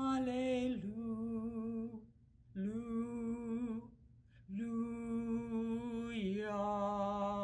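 A woman singing unaccompanied, slowly, a "hallelujah" refrain: three long held notes with vibrato, with short breaks between them. The first note dips in pitch partway through, and the last note steps up and is held.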